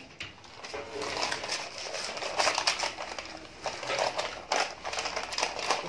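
Baking paper crinkling and rustling in short, irregular crackles as it is lifted and handled with a rolled-out sheet of dough on it.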